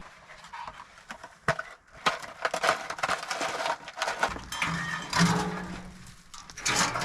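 Dry branches cracking and snapping as they are broken off a downed tree, with a short creak about five seconds in.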